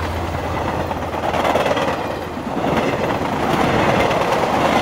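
Intro sound effect: a dense, rumbling, rattling noise that swells about a second and a half in and again near the end.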